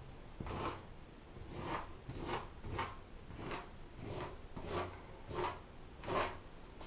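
The flat back end of a plastic caulk tube scraping over textured drywall in about ten short, quick strokes, smoothing wet caulk into a repaired corner; the stroke about six seconds in is the loudest.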